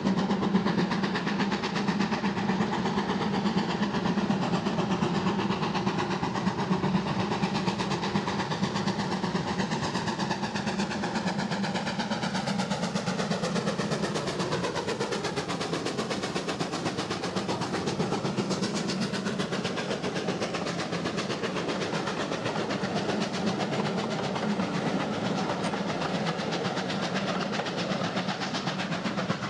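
GWR Manor class 4-6-0 steam locomotive 7828 Odney Manor running under steam with a train of coaches, its exhaust beat steady and loud. The sound falls in pitch as the engine passes, about halfway through, and the coaches' wheels roll by after it.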